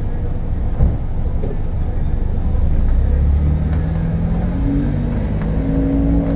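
A car pulling away and accelerating, its engine note climbing in pitch, over a steady low rumble. A short thump about a second in.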